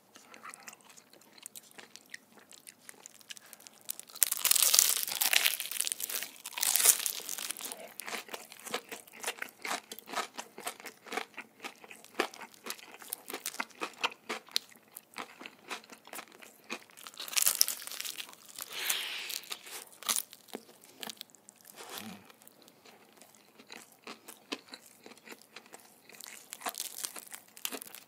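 Close-miked eating of crispy Korean market-style fried chicken: repeated crunching bites and chewing of the battered skin, with louder crunching about four seconds in and again around seventeen seconds.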